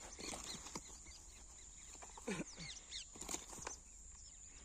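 Outdoor birds chirping repeatedly in short high calls over a steady high hiss, with one lower animal call falling in pitch about two seconds in.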